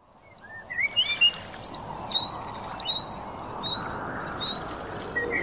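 Wild birds chirping and singing, many short rising and falling calls over a steady outdoor hiss, fading in from silence at the start.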